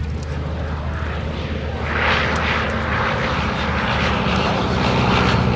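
1929 Travel Air D4000 biplane flying past, its Wright Whirlwind radial engine and propeller running steadily. The sound grows louder about two seconds in as it comes nearer.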